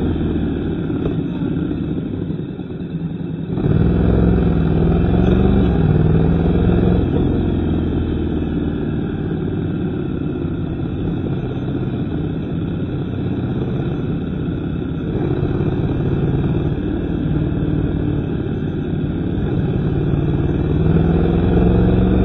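Vehicle engine running under way, with steady road and wind noise. About three and a half seconds in, the engine note rises sharply as it accelerates, then it pulls steadily. It climbs again near the end.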